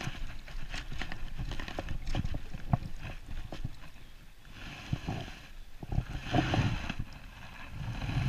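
A landing net being worked through a river current to scoop a snagged lure off the bottom: water swishing and splashing around the net and its handle, with scattered knocks and clicks, then the net is lifted out near the end.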